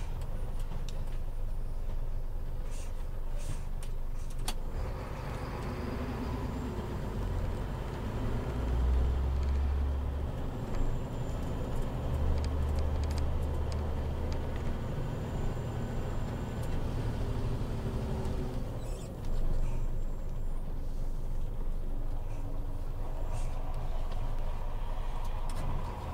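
Scania truck's diesel engine running under way, heard from inside the cab as a steady low drone that swells deeper and louder twice in the middle, with a few sharp clicks and rattles.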